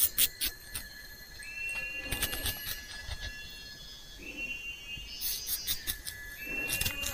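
A knife cutting through fresh lemongrass stalks held in the hand, giving short clusters of crisp cracks a few times. A short whistle-like tone repeats every two to three seconds in the background.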